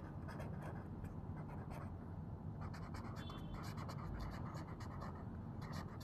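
Pen scratching on paper in quick, irregular strokes as words are written out by hand, faint, over a low steady background hum.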